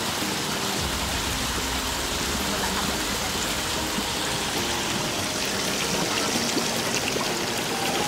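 Shallow river water rushing and splashing over rocks, a steady even rush.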